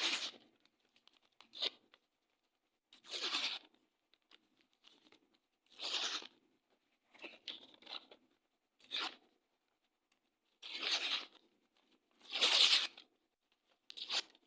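Paper being ripped: about nine separate short tears, each under a second long, with quiet pauses between them.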